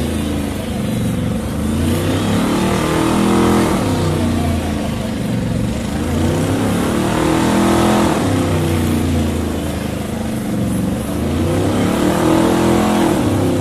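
Car engine revving hard during a burnout, the revs climbing and dropping back about three times, over the hiss of rear tyres spinning on the asphalt.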